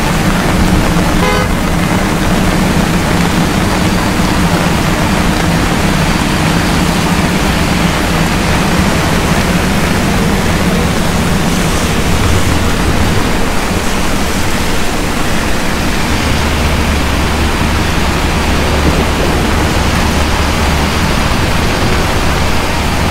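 Heavy rain pouring down and splashing on wet city pavement, a loud steady hiss, with car engines running in the street beneath it. A deeper engine rumble comes in about two-thirds of the way through.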